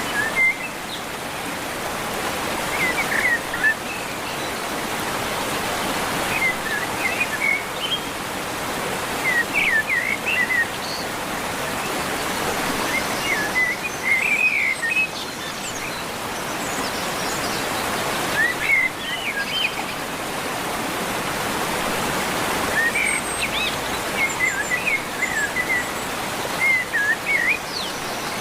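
A songbird singing short, quick warbled phrases every few seconds, with a few higher chirps, over a steady background rush.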